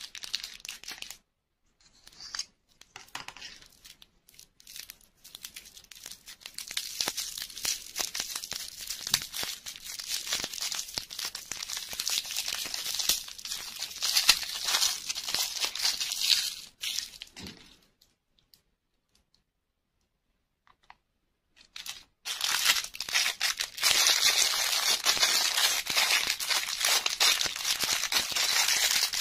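Thin plastic candy wrapper crinkling and tearing as a lollipop is unwrapped by hand, then a clear plastic bag of small toy parts crinkling loudly as fingers work it. A few seconds of near silence fall between the two, a little past the middle.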